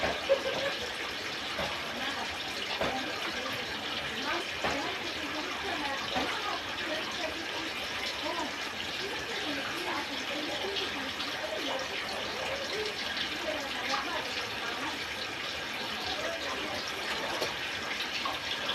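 Steady rushing water noise, with faint voices underneath.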